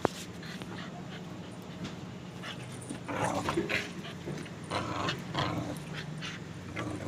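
Pitbull puppy giving short, rough growls in a few bursts, mostly in the second half, with a sharp click near the start.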